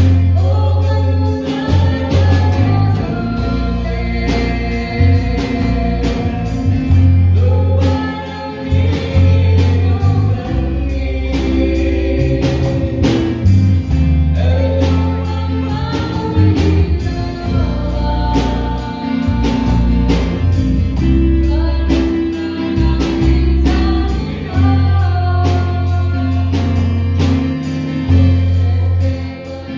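A woman and a man singing a duet into microphones, over accompaniment with a bass line and a steady beat.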